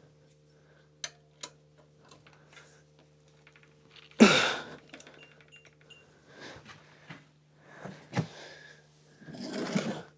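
Scattered clicks and light metallic knocks from tools and trike parts being handled, with one loud clatter about four seconds in and more knocking and scraping near the end, over a steady low hum.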